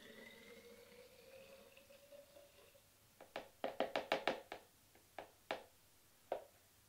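Carrot juice pouring from a plastic jug into a glass bottle, the filling tone rising in pitch as the bottle fills. Then a quick run of drips and small knocks against the bottle as the last of the juice is shaken out.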